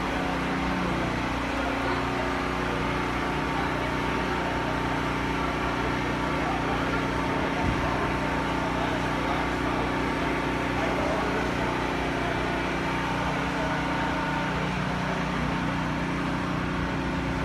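Steady low mechanical hum, several even tones held over a constant background noise, with no change in pitch or level.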